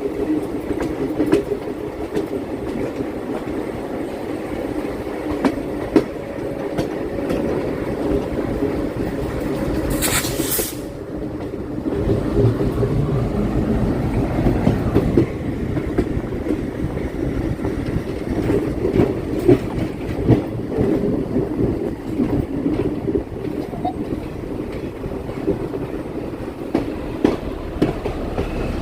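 Electric suburban train running on the rails, with wheels clicking over the rail joints, and a brief hiss about ten seconds in.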